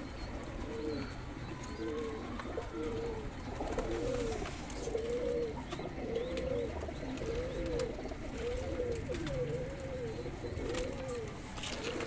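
Domestic pigeons cooing over and over in their loft, a coo a little more often than once a second.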